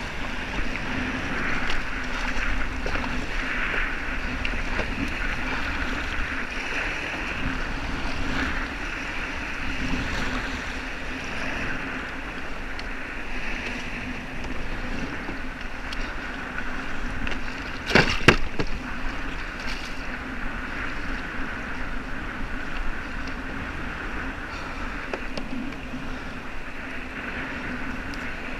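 Rough, wind-driven bay chop sloshing against a kayak hull, with wind on the microphone. A sharp knock comes about two-thirds of the way through.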